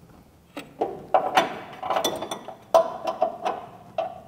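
Metal spanner clinking against a brake pipe union nut and the surrounding metal: an irregular run of sharp clinks, each ringing briefly, starting about half a second in.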